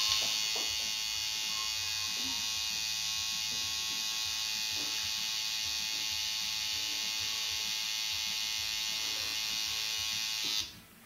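Electric tattoo machine buzzing steadily while needling skin, then switching off near the end.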